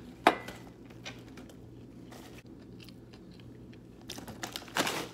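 Close-miked chewing and crunching of food, with a single sharp click just after the start and a louder, noisier stretch near the end.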